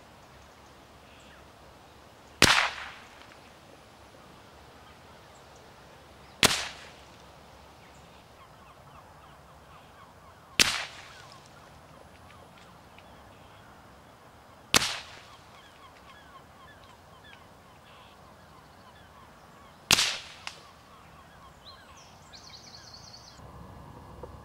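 Five suppressed .22 LR rifle shots with subsonic ammunition, heard from downrange about 50 to 60 yards away: sharp cracks about four seconds apart, each with a short fading tail. Two shots are fired with the suppressor dry and three with it wet, and they all sound more or less the same.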